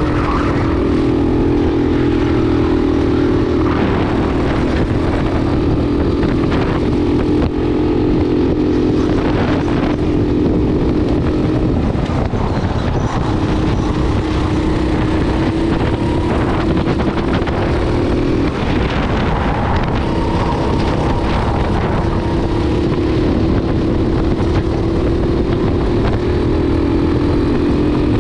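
Racing kart engine running hard under the seat. Its pitch drops a few times as the kart slows for corners, then climbs again as it accelerates.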